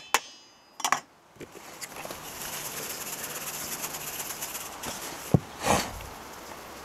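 Spice jar shaken over a stainless steel bowl of seasoned pork cubes: a steady rattling hiss of falling granules, preceded by a few clicks of utensils against the bowl and broken by a sharp click a little after five seconds.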